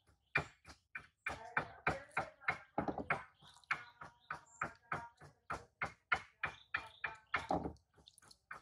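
Hands washing something in a plastic basin of water: a quick, irregular run of short splashes and taps, about three a second.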